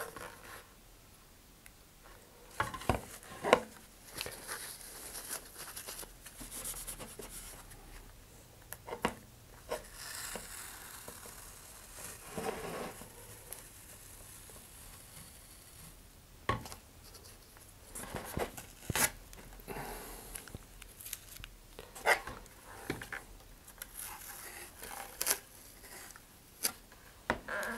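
Handling noise from a model rocket being worked on a cutting mat: scattered light knocks and taps as the rocket body is turned and set down, with soft rustling and rubbing of gloved hands and paper towels in between.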